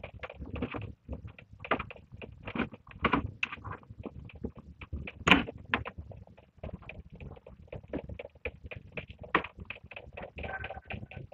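Rustling and clicking from a cable and small plastic parts being handled, an irregular run of short knocks with one sharper click about five seconds in.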